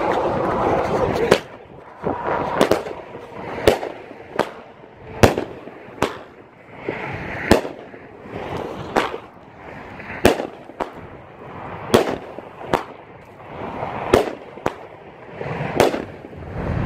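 Kong 12-shot 500-gram firework cake by Alien Fireworks firing: a string of sharp launch and burst reports, roughly one a second, after a noisy first second.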